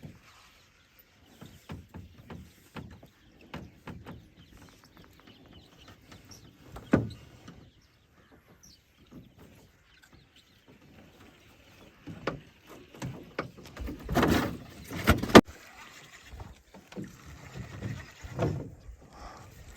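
Small fishing boat being worked on the water: scattered knocks and creaks, with a sharp thud about seven seconds in. A louder stretch of water noise and knocks comes about fourteen to fifteen seconds in.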